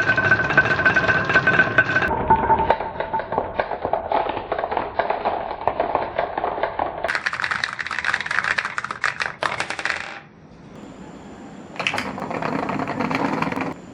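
Marbles rolling and clattering down a wooden HABA marble run: a dense rattle of clicks with some ringing tones. It stops about ten seconds in, then a shorter burst of clatter comes near the end.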